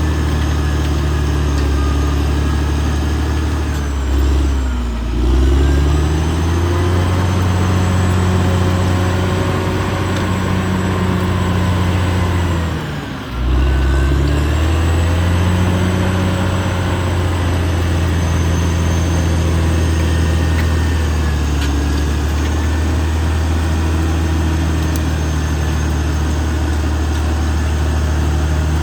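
Caterpillar D6R XL bulldozer's diesel engine running steadily. Its pitch dips and comes back up twice, about five seconds in and again around thirteen seconds, the second time with a brief drop in loudness.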